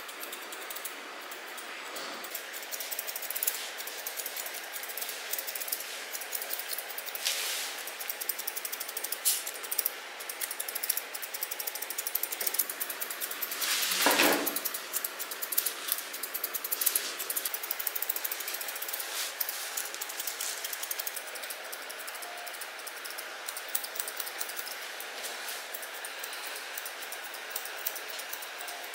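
Grooming scissors snipping through a poodle's leg fur: short, sharp metal snips in irregular runs, with one louder thump about halfway through.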